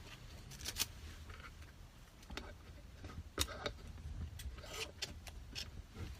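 Faint, scattered clicks, taps and rustles of small handling noises as seafood sauce is put onto a potato-shred pancake.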